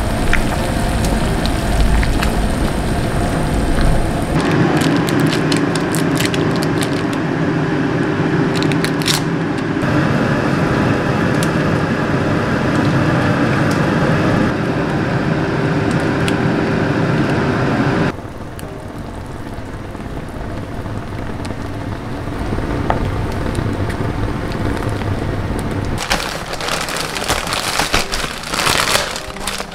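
Beef stew bubbling at a simmer in a cast-iron pot, stirred with a ladle; the sound shifts abruptly a few times. In the last few seconds there are crinkling, clicky handling noises from a plastic-wrapped pack of paper towels.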